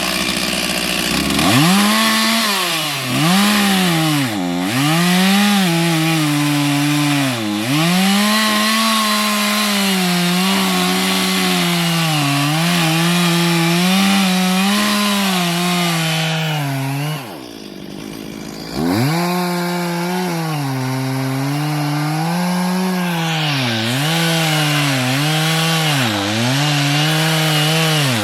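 Two-stroke chainsaw cutting into a tree stump at full throttle, its engine pitch dipping again and again as the chain bogs down in the wood. About seventeen seconds in it eases off for a second or two, then goes back to cutting.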